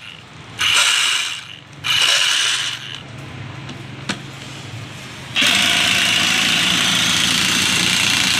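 Electric impact wrench rattling on an alternator's pulley nut: two short runs of about a second each, then a longer steady run starting a little past halfway.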